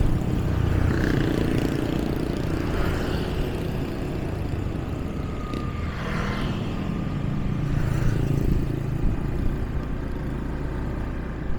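Motorbike engine running as it is ridden along a road, getting a little louder about eight seconds in.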